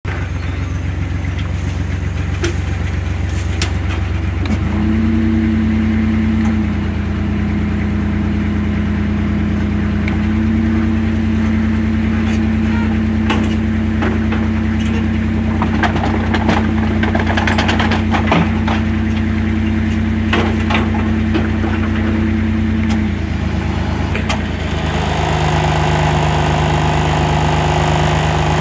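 Engine of a Blosi Zip self-propelled orchard harvesting platform running steadily, its pitch stepping up and down several times. Scattered knocks and clatters sound over it.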